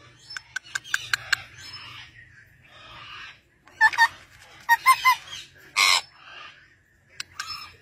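Parakeets calling: short chirps about four and five seconds in, then a loud harsh screech about six seconds in. A run of short clicks in the first second and a half, and a few more near the end.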